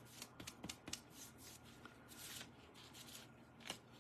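Faint strokes and light ticks of a paintbrush working paint onto a wooden cutout, with one sharper tap near the end.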